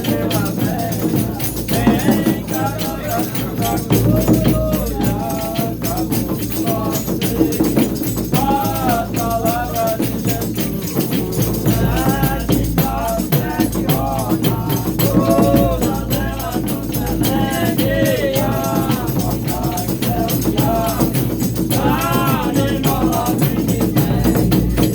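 Reisado folk music: voices singing a melody over dense, fast shaken and struck hand percussion.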